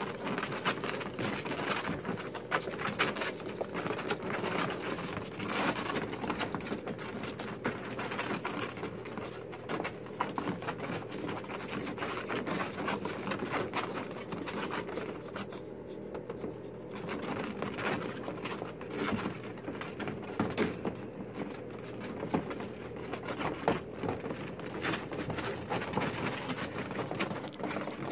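Newborn micro mini piglets grunting softly and continually as they scuffle and shove at each other, with their feet scrabbling and the bedding and puppy pad rustling under them.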